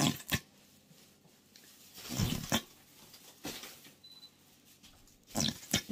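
Plastic squeeze bottle of Sweet Baby Ray's barbecue sauce sputtering as it is squeezed, air and thick sauce spurting out of the nozzle in a few short, irregular bursts, the longest about two seconds in and a couple more near the end.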